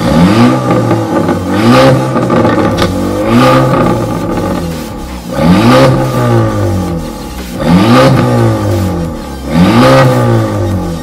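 Audi A5 revved six times in quick blips through an Armytrix valvetronic exhaust with the valves closed. Each blip is a rise and fall in the engine note, with idle between them.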